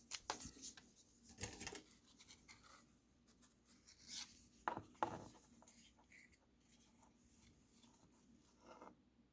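Faint scattered clicks and rubbing as a pair of calipers is handled and closed on a nylon NATO watch strap, mostly in the first five seconds, then near silence.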